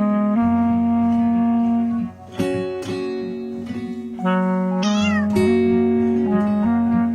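Background music with one cat meow about five seconds in.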